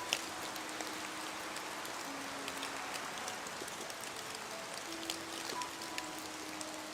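Steady heavy rain hissing on a surface, with scattered sharp drop ticks and one louder tap near the start. Soft music plays quietly underneath: a few long held single notes.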